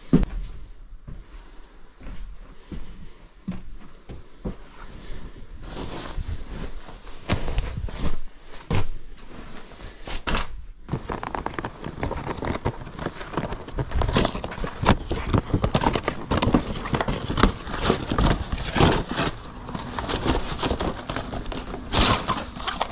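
Handling noise: scattered clicks and knocks at first, then a busier run of crackling and rustling from about halfway in, with cardboard boxes of Christmas light strings being handled near the end.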